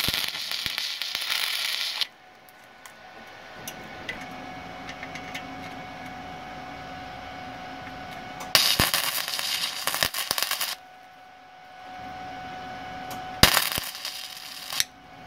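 MIG welder tack-welding a steel clamp bracket onto an exhaust pipe: three tacks, each a burst of arc noise lasting one to two seconds, the first at the start, the others about nine and thirteen seconds in, with a steady hum in between.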